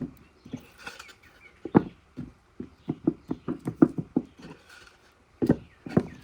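Hollow wooden knocks and clunks, a dozen or so irregular taps, as the boards of an old wooden shoeshine box are handled and turned over.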